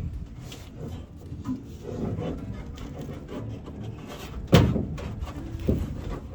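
Handling and scraping noises of hands and tools at work, with one loud knock about two-thirds of the way through and a lighter knock about a second later.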